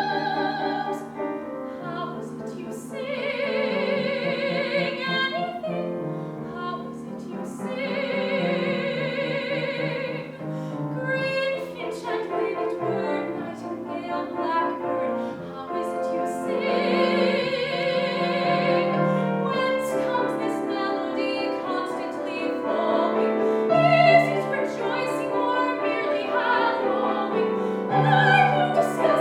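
A soprano singing in classical musical-theatre style, with wide vibrato on three long held high notes, over piano accompaniment.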